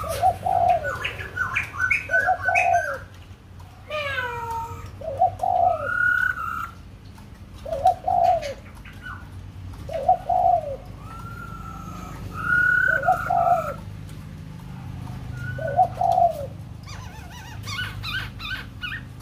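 Caged laughingthrush singing loud whistled phrases with sliding notes, in bursts separated by short pauses. Under it a dove coos in a steady low repeat, about once every two seconds.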